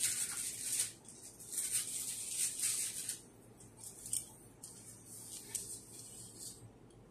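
Irregular bursts of rustling and light scraping from hands handling tools and small parts, as a digital caliper is brought to the dashcam's supercapacitor module to measure it.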